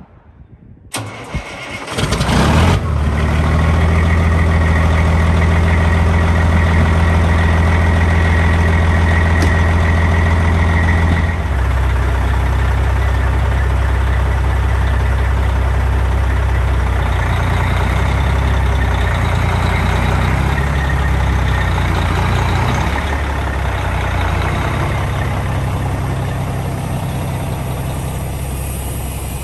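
A 1987 GMC General heavy truck's diesel engine cranks and catches about two seconds in, then runs at a steady fast idle. About eleven seconds in, the engine note drops to a lower idle and keeps running.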